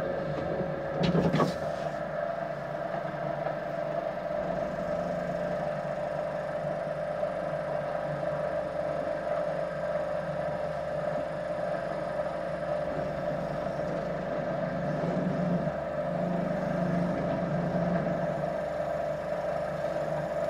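Electric potter's wheel motor running with a steady hum, with a brief clatter about a second in.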